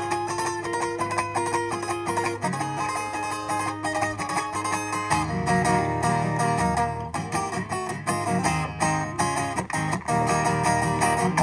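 Acoustic guitar played live through a PA, picked and strummed chords as the instrumental intro to a song, over sustained low bass notes that shift lower about halfway through.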